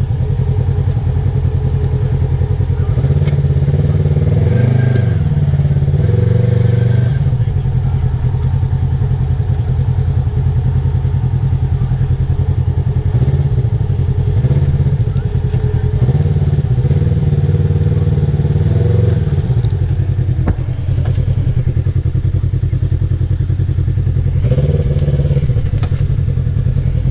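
Polaris RZR side-by-side engine running at low revs, picking up briefly a few times as the machine is maneuvered.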